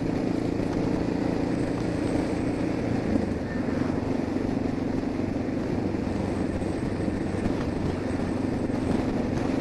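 Suzuki DR650 single-cylinder engine running at a steady cruise under wind and helmet noise, picked up by a cheap dictaphone microphone inside the rider's helmet.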